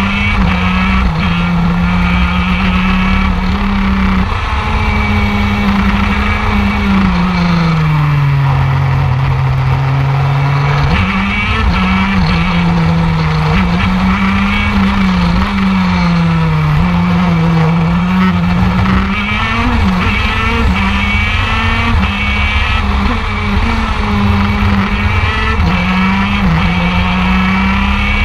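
TM KZ10C 125cc two-stroke shifter kart engine running hard, heard from on board. The note holds high on the straights and drops in pitch as the kart slows for a corner about eight seconds in. It climbs again from about eleven seconds, with short steps in pitch at the gear changes.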